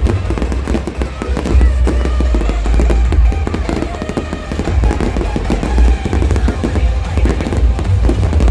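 Fireworks display going off in quick succession: deep booms under dense crackling, with music playing alongside.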